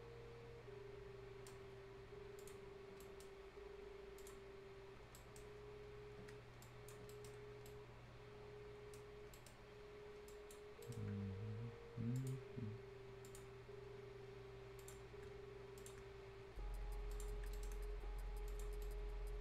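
Scattered faint computer mouse clicks over a steady background hum. A brief low sound comes about eleven seconds in, and a louder low hum starts near the end.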